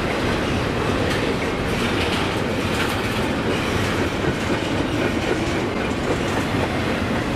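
A double-stack intermodal freight train's container well cars rolling past at close range: a steady, loud rumble of steel wheels on the rails with occasional clacks.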